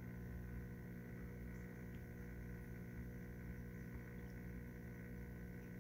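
Steady hum of reef aquarium equipment such as pumps, made of several steady tones that hold unchanged throughout.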